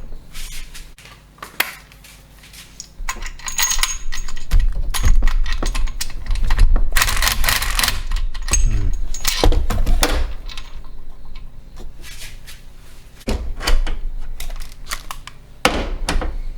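Irregular metallic clinks, taps and scraping as a bolt is worked into the engine's stripped aluminium pulley housing, with the leftover thread catching it. The scraping is densest for several seconds in the middle.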